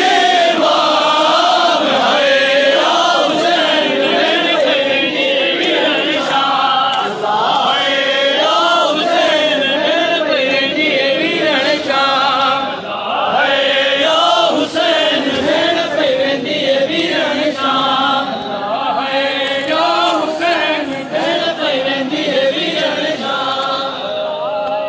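A group of men chanting a Shia mourning lament (noha) together, their voices loud and continuous with a wavering melody.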